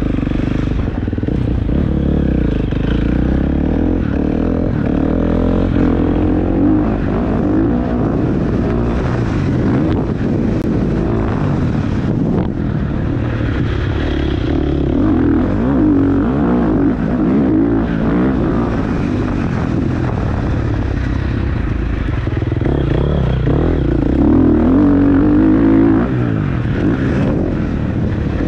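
A vehicle engine running continuously, its pitch rising and falling over and over.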